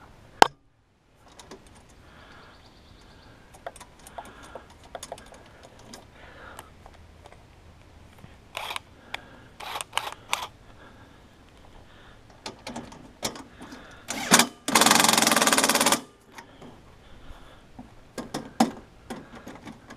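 Light clicks and clanks of a drill bit and metal parts being handled, then a cordless drill runs in one burst of about a second, roughly three-quarters of the way through.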